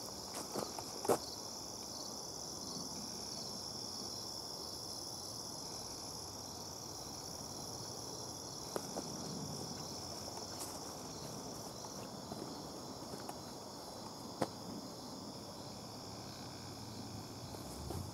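Steady, high-pitched chorus of insects trilling in the summer woods, with a few footsteps about a second in.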